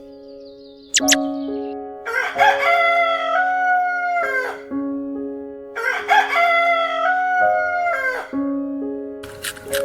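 A rooster crowing twice, each crow about two and a half seconds long and ending on a held note, over soft background music with sustained tones.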